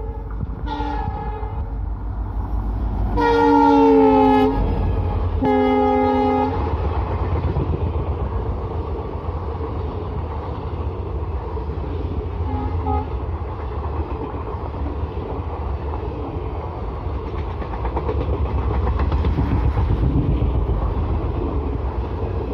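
WDP-4B diesel locomotive sounding its multi-tone horn: a short blast about a second in, then two long, loud blasts around three and five seconds in, the first falling slightly in pitch as the locomotive passes. After that, the steady rumble and clatter of the passenger coaches' wheels rolling past on the rails.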